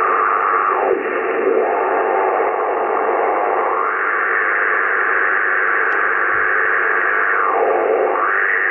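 Strong local interference noise coming from a Yaesu FT-840 HF transceiver's speaker on the 160 m band in LSB: a loud, dense rushing hiss. Its tone sweeps down and back up a few times. This is local man-made noise, heard with no noise canceller switched in.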